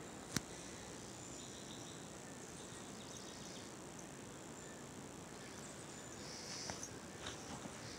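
Faint outdoor ambience with insects chirping in high patches, loudest about three-quarters of the way through. A single sharp click sounds shortly after the start, and a few soft taps come near the end.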